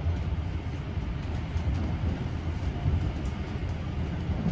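Vintage railway carriage running at speed on the rails, heard from inside the carriage: a steady low rumble with rattling wheel and track noise above it.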